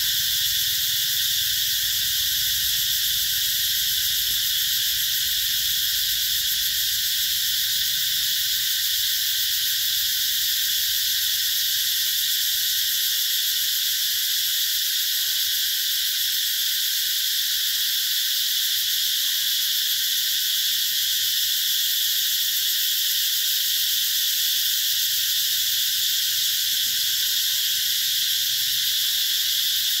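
Cicada chorus: many cicadas buzzing together in one dense, steady, high-pitched drone that holds at the same level throughout.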